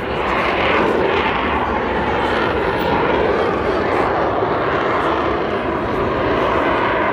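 Pegasus vectored-thrust turbofan of an AV-8B Harrier II jump jet, a loud, steady jet roar as the jet flies low over the beach.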